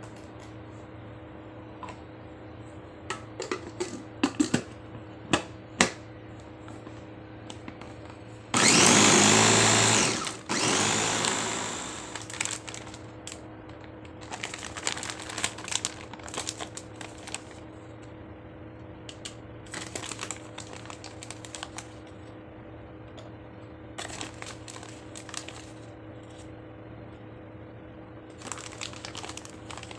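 Electric mini chopper running in two short pulses of a couple of seconds each, the second winding down, mixing minced meat and seasoning into meatball paste. A few sharp clicks and knocks come before it, and later a plastic bag of tapioca flour crinkles in several stretches as flour is spooned into the bowl.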